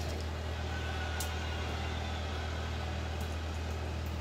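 Steady low machine hum, with a few faint clicks of a small screwdriver working the screws of a laptop screen frame.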